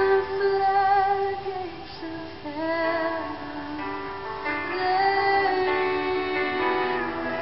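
A slow worship song: a woman's voice sings long, held notes that glide from one pitch to the next, over quiet band backing.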